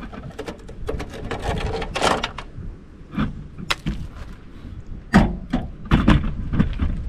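Metal clanks, knocks and scraping rattles from a sheet-metal light fixture being handled and pried apart by hand, with two heavier knocks about five and six seconds in.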